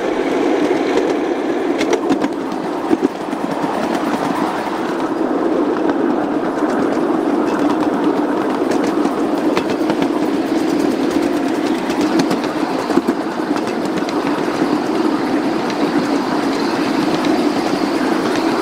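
Ride-on miniature railway train rolling along the track, a steady rumble of wheels on rail with occasional clicks.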